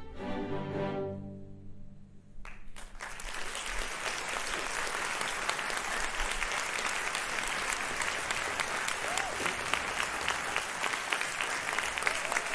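A string orchestra's final chord rings out and fades away over about two seconds. After a short gap, an audience starts applauding about two and a half seconds in and keeps clapping steadily.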